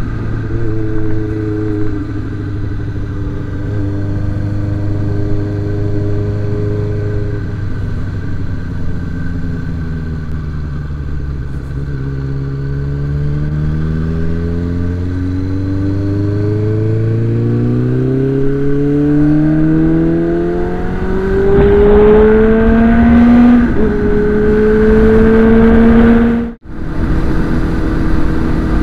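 Suzuki Bandit 600's inline-four engine under way: steady at first, then rising in pitch as the bike accelerates, with a quick gear change about two-thirds of the way in, after which it holds a steady note. Wind rush runs underneath, and the sound drops out for an instant near the end.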